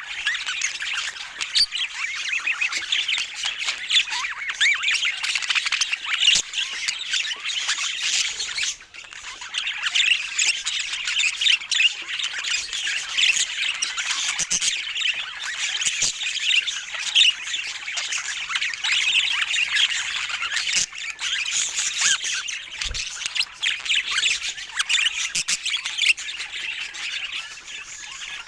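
Several budgerigars chattering: a dense, continuous twitter of warbles, chirps and squawks, with a brief lull about nine seconds in.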